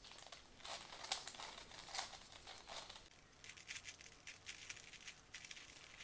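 4x4 Rubik's cube being turned quickly by hand: faint, rapid plastic clicking and rattling of its layers, thinning out for a moment a little past halfway.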